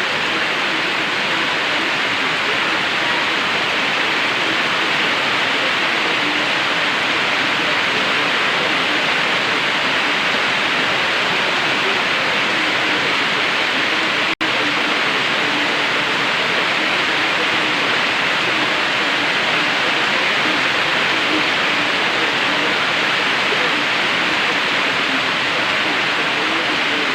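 Heavy, steady tropical-storm rain pouring down, a dense even hiss. It cuts out for an instant about halfway through.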